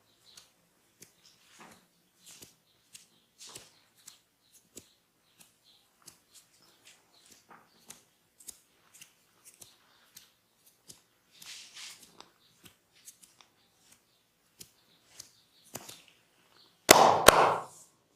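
Hands massaging skin and hair close to the microphone: faint scattered clicks and soft rubbing. Near the end comes a loud, sharp double snap lasting about half a second.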